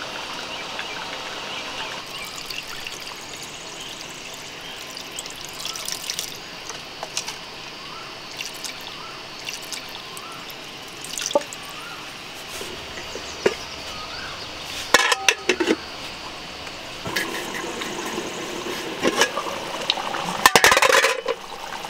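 Fish curry cooking in a metal pan on a gas stove, with liquid poured into it and light clinks of steel utensils. Near the end a large metal lid clatters onto the pan.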